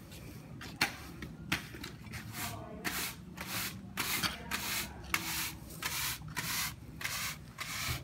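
Push brooms sweeping a dirt-covered paved yard: the bristles scrape the ground in short repeated strokes, about two a second, closer together and louder in the second half.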